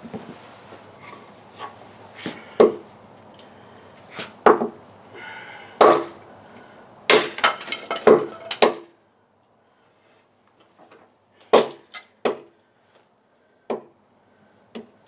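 CRKT Woods Chogan tomahawk, a carbon steel head on a hickory handle, chopping into a piece of wood on a stump to split it. About ten sharp, separate strikes, irregularly spaced, coming closer together in the middle and sparser near the end.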